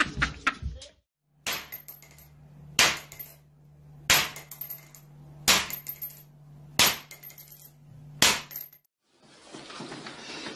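Six sharp strikes, evenly spaced a little over a second apart, over a steady low hum.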